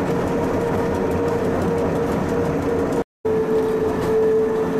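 Electric rack railcar of the Pilatus cogwheel railway running, a steady whine from its drive and rack gearing over the rumble of the ride. The sound cuts out for a moment about three seconds in and resumes unchanged.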